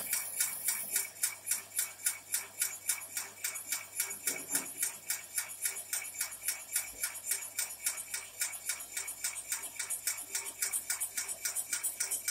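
Electric jackfruit slicing machine running, its mechanism clattering in a steady, rapid rhythm of about five clicks a second.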